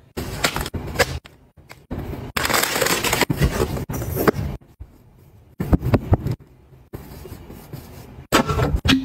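Paper towels being handled: rustling, crinkling and tearing in short bursts that start and stop abruptly several times.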